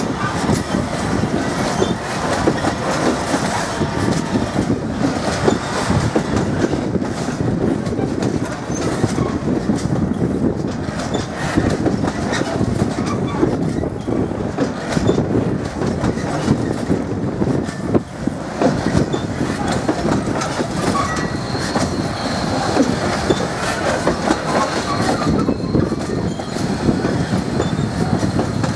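Long freight train of enclosed car-carrier wagons rolling past, its wheels clattering steadily over the rails. A thin, steady high whine joins in about three quarters of the way through.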